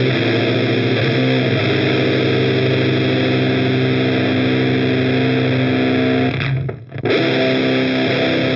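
Electric guitar played through an Audio Disruption Devices Transformations fuzz pedal: thick, heavy fuzz chords held and let ring, with delay washing behind them like a reverb. The sound drops out briefly about two-thirds of the way through, then the chords come back.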